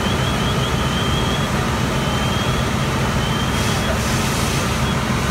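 Heavy truck engine running steadily, a low hum with a thin steady whine above it. Short high chirps repeat in quick groups during the first second or so, then fade to a few longer faint notes.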